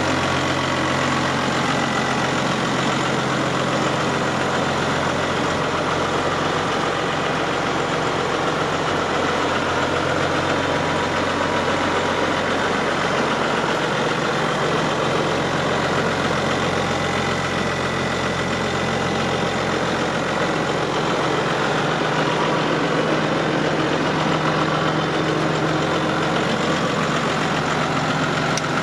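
New Holland TM120 tractor's diesel engine idling steadily.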